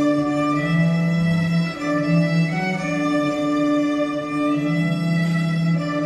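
Violins with a cello playing a slow instrumental passage of long, held notes.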